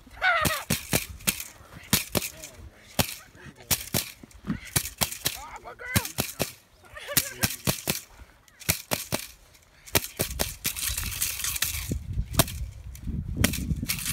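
Repeated sharp cracks of a training stick striking the ground and the bite suit while a 4.5-month-old German Shepherd puppy grips and tugs the suit, with a few short, high yelping calls in the first half. From about ten seconds in, a steady rustle and scuffle of the suit and paws in the dry grass runs under the cracks.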